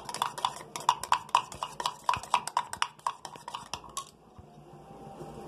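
A steel spoon whisking eggs in a stainless-steel tumbler, clinking against the metal about five times a second with a short ring on each strike. The beating stops about four seconds in.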